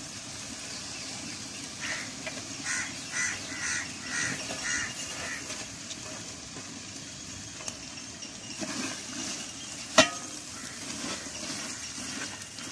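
A metal ladle stirring and scraping mutton and masala in a large aluminium pot, with a run of short strokes a couple of seconds in and one sharp metal clank about ten seconds in.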